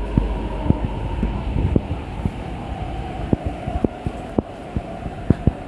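MTR Tuen Ma Line C-train at the platform: its low rumble eases off in the first second as it comes to a stand, leaving a steady hum. Scattered short sharp taps sound throughout.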